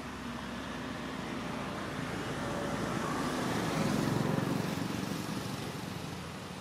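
A motor vehicle passing by, growing louder to a peak about four seconds in and then fading away.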